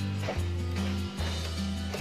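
Background music with a deep bass line moving through held notes, and a few sharp percussive hits.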